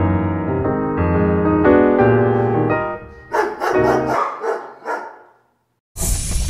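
Piano music playing, ending about three seconds in, followed by a few short rough sounds and a moment of silence. A new loud piece of music starts near the end.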